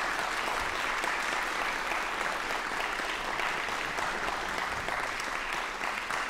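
Audience applauding: dense, steady clapping from a hall full of people, beginning to fade near the end.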